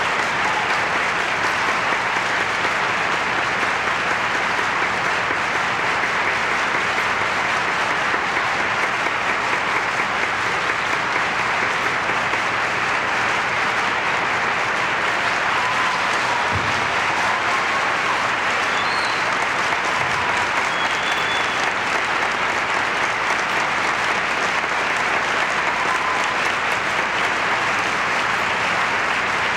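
Theatre audience applauding steadily: dense, continuous clapping from a large house that holds at an even level throughout.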